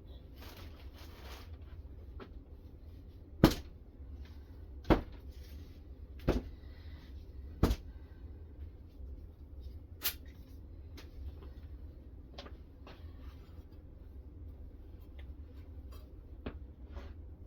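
Hard objects knocking: four sharp clicks about a second and a half apart, then one more and a few lighter ticks, over a steady low hum.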